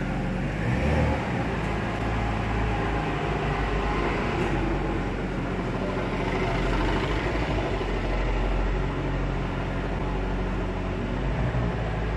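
Jaguar XJ40 XJ6's straight-six engine running at low revs, a steady low drone, as the car is slowly reversed out of a parking bay.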